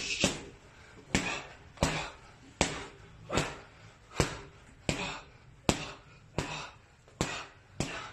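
Boxing-glove punches landing in a steady series of sharp slaps, about a dozen, roughly one every three-quarters of a second, sometimes two in quick succession.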